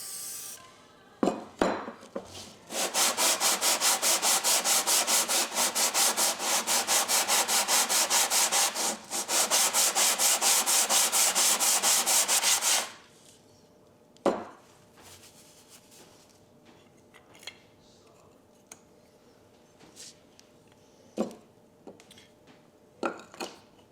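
Cast-iron sole of a hand plane being lapped flat on WD-40-lubricated sandpaper: fast, steady back-and-forth rasping strokes for about ten seconds, with a short break midway. After it stops, only a few light knocks.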